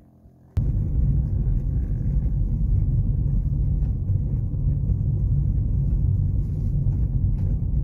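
Car driving at low speed, heard from inside the cabin: a steady low rumble of engine and road noise that starts suddenly about half a second in.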